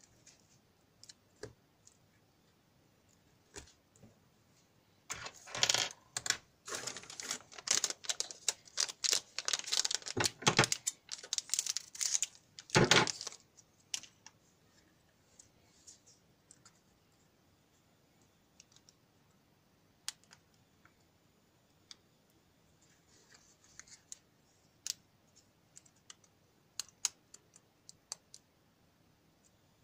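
Clicks and rustling from hands handling small electronic parts and alligator-clip leads on a sheet of paper: a dense run of clicks and rattles for about eight seconds, starting about five seconds in, then scattered single clicks.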